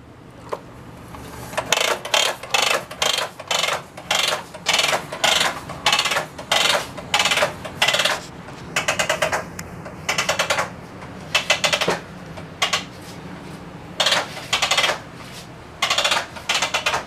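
Spring-retractable air hose reel (ReelWorks) ratcheting as the hose is pulled out: runs of rapid clicking from the ratchet pawl, coming in short bursts about once or twice a second with each pull.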